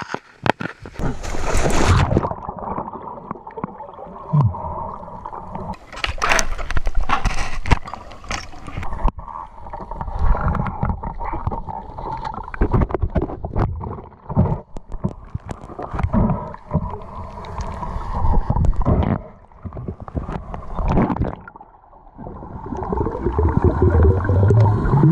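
Water sloshing and gurgling around a waterproof action camera as it goes from the surface under the water. The sound is muffled, with irregular surges and crackles.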